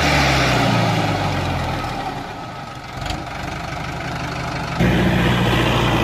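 Miniature DIY model tractor running steadily as it reverses, with an engine-like hum, getting louder about five seconds in.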